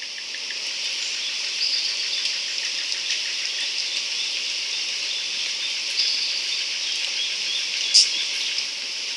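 Nature ambience: a steady high-pitched hiss with a few short, high chirps, the sharpest about eight seconds in.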